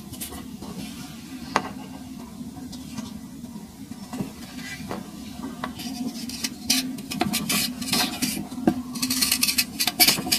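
Fingers crumbling dry sand with a few faint crackles, then a metal knife blade scraping a chunk of hardened sand, with grit crunching and grains falling. The scraping starts about six seconds in and turns denser and louder near the end.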